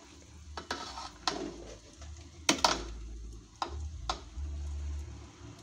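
Metal ladle stirring cassava leaves in coconut-milk broth in a large metal pot, clinking against the pot several times, with the loudest two knocks close together about two and a half seconds in.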